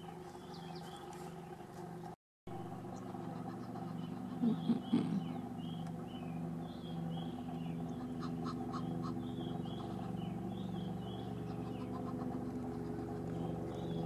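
A vehicle engine idling with a steady low hum that pulses regularly, while small birds chirp again and again in the background. A brief louder sound comes about four to five seconds in.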